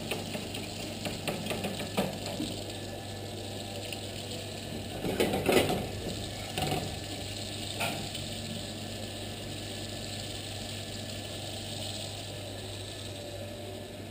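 Butter sizzling in a frying pan as it cooks toward brown butter, over a steady low hum. A short clatter of a utensil against the pan comes about five seconds in, with a couple of single knocks after it.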